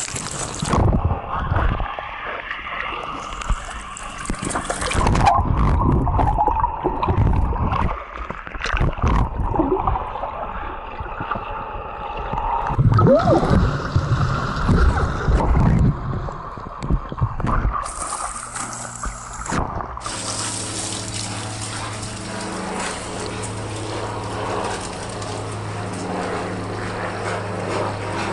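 Water heard from underwater as a Labrador retriever dives in a swimming pool: muffled splashing, gurgling and bubbling, with sudden louder surges. About twenty seconds in the sound switches to open air, where a steady low hum with a hiss runs on.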